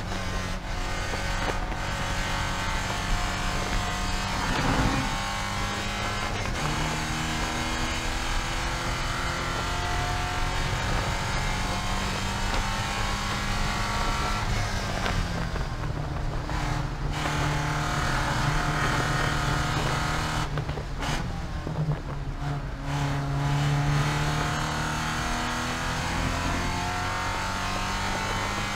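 Porsche 944 Spec race car's 2.5-litre four-cylinder engine heard from inside the cockpit, running hard at high revs. The pitch climbs steadily under acceleration and drops suddenly several times at gear changes, over steady road and wind noise.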